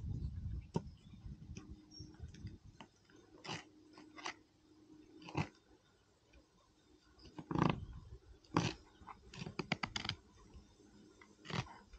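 Fillet knife cutting along a black bream's backbone, the blade crunching and scraping through bones and scaly skin in short, irregular strokes, with a quick run of small clicks near the middle.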